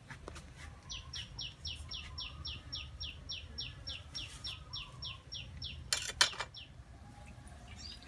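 A bird calling a fast run of about twenty short high notes, each dropping in pitch, roughly four a second. About six seconds in come two sharp knocks, the loudest sounds.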